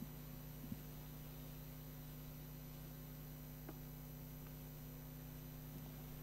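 Steady low electrical hum, with a faint click under a second in and another about halfway through.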